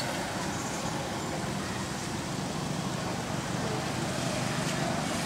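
Steady background noise of road traffic.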